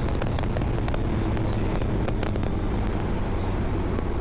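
Honda CBR650F's inline-four engine running steadily under way, heard with wind noise and scattered sharp clicks.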